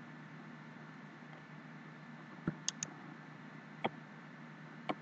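Computer mouse clicking: a single click about two and a half seconds in, a quick double click right after, then two more single clicks about a second apart, over a steady low hum.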